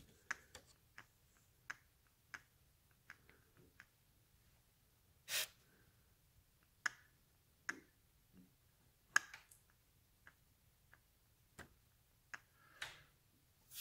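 Faint, irregular light clicks and taps, with a short rustle about five seconds in and another near the end: small handling noises as the throttle of the twin Amal carburetors is worked to watch the needles move together.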